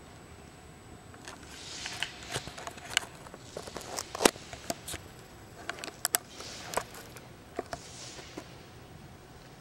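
A sheet of paper rustled and torn at a distance, with a run of sharp little clicks and taps ringing in a large reverberant hall. It is the guide's acoustics demonstration in the Salt Lake Tabernacle, where small quiet sounds made at the pulpit carry out to the benches.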